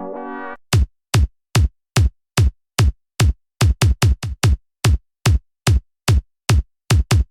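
Electronic drum-machine hits: a run of about twenty short synth drum strikes, each a quick downward pitch sweep like a synth kick or tom. They come at a steady pace of roughly two or three a second, with a quicker flurry about four seconds in. A held synth-brass chord cuts off just before the hits begin.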